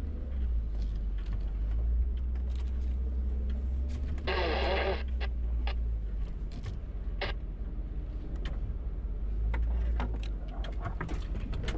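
An off-road 4x4's engine drones low and steady at crawling speed, heard from inside the cab, with scattered knocks and rattles as the vehicle bumps over a rough, rocky dirt trail. A brief squeal sounds about four seconds in.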